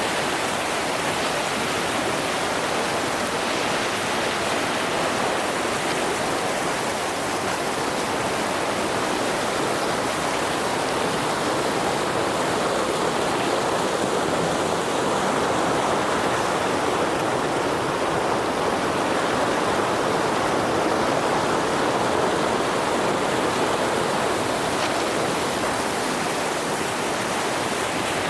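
Steady rushing of heavy river water over rapids and falls, with no breaks or single events.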